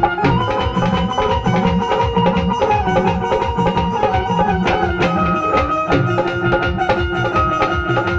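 Instrumental passage of Indian devotional folk music: a two-headed dhol beaten with a stick and an electronic drum pad keep a steady, fast rhythm under a held melody line.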